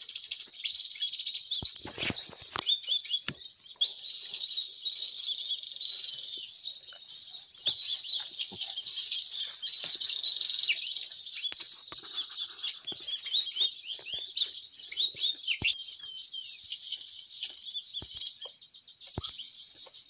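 Dense, continuous high-pitched chirping and twittering of many small birds calling over one another.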